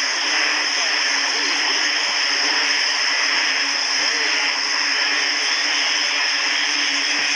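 Dense tropical night chorus of calling frogs and insects: a steady, many-layered wall of sound with continuous high tones over a low hum and many small overlapping calls.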